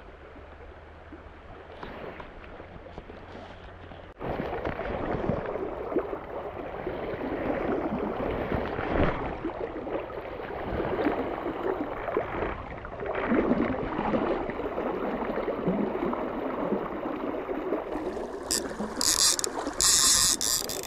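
Fast river water rushing close to the microphone, muffled for about four seconds and then suddenly louder. Near the end, a Hardy Perfect fly reel's click-and-pawl ratchet screams in several rapid bursts as a hooked rainbow trout pulls line off it.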